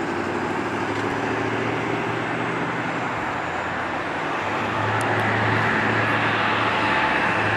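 Boeing 777-200ER airliner with Rolls-Royce Trent engines on final approach, a steady jet rumble and hum that grows louder about halfway through as it nears.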